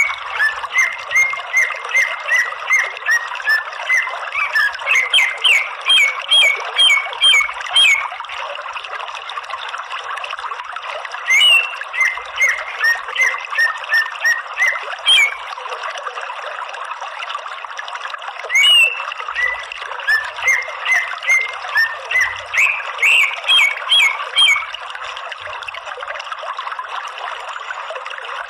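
Greater green leafbird (cucak ijo) calling in three long bouts of sharp, rapidly repeated notes, about two a second, with pauses of a few seconds between bouts, over a steady background hiss.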